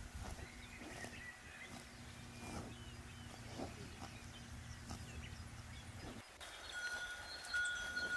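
Cowbells on grazing cattle clanking irregularly, with faint bird chirps and a low steady hum behind. About six seconds in the hum cuts off and a steady ringing bell tone sets in.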